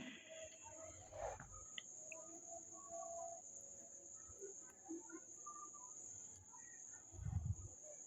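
Steady high-pitched chirring of crickets in the background, with faint small handling sounds and a low thump about seven seconds in.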